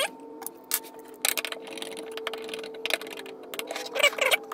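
Stepper motor being fitted and fastened to a 3D-printed plastic housing: irregular clicks and clacks of plastic parts and small screws, over a steady hum.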